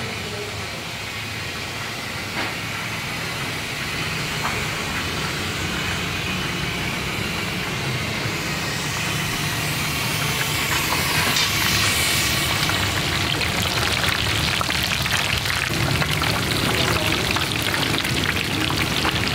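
A steady low hum and hiss of room noise. From about halfway through, a dense crackling sizzle grows louder: whole fish deep-frying in a large wok of hot oil.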